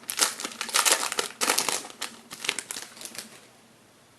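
Foil wrapper of a trading card pack crinkling as it is handled and opened, in dense crackles that die away about three seconds in.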